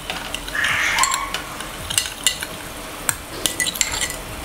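A metal spoon stirring food colour into a little water in a small glass bowl, clinking against the glass at irregular moments with a short scrape about a second in, over water bubbling at the boil in a pan.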